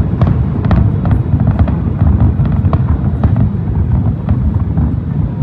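Large aerial fireworks display: a continuous low rumble of many shells bursting, with sharp cracks and pops several times a second.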